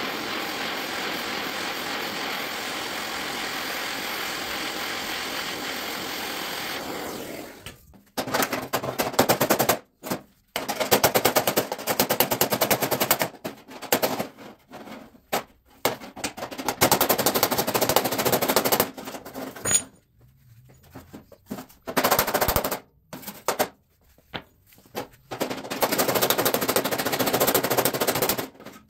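A torch hisses steadily for about seven seconds while heating sheet metal. It cuts out, and then come repeated bursts of rapid, loud crackling, typical of MIG welding short runs and tacks to close a bullet hole in a truck's sheet-steel quarter panel.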